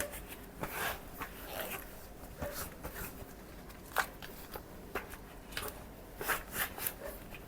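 Cloth wiping plastic vacuum cleaner parts dry: irregular short rubbing and rustling strokes, with a few light clicks and knocks of the parts being handled.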